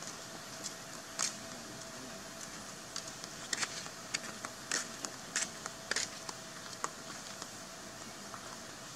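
Steady hiss with a faint steady hum, broken by scattered short, sharp clicks and ticks: one about a second in, then a cluster between about three and six seconds in.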